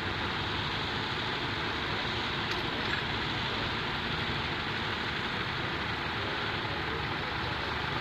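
Small vintage tractor engine running steadily, with an even, unbroken rumble and rush of noise.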